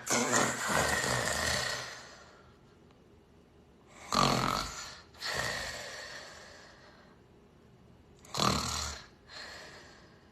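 A person snoring in slow cycles. A loud, rough snoring breath comes about four seconds in and again about four seconds later, each followed by a softer one, after an earlier snore fades out at the start. This is heavy snoring of the kind that may well point to obstructive sleep apnea.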